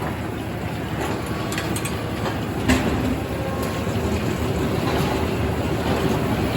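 Sawmill machinery running steadily, with one sharp clank nearly a third of the way in.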